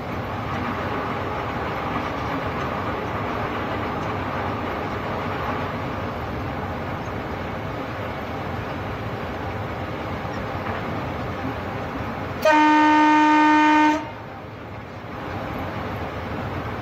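Train running along the line with a steady rumble, and about three-quarters of the way through the locomotive's horn sounds one loud blast at a single steady pitch, lasting about a second and a half and stopping abruptly.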